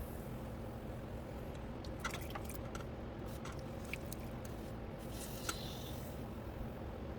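Electric potter's wheel running with a steady hum, with scattered small clicks and wet squishing from hands and tools on the spinning clay, and a short hiss about five seconds in.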